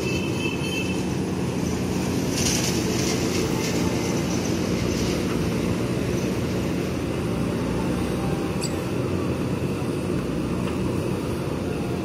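A JCB backhoe loader's diesel engine running steadily under load while the backhoe arm digs mud, with a hiss from about two and a half to five seconds in.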